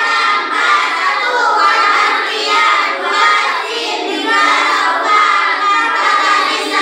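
A class of children chanting together in unison, a sing-song group recitation of their Arabic grammar (nahwu) lesson, the kind of rote chanting called lalaran.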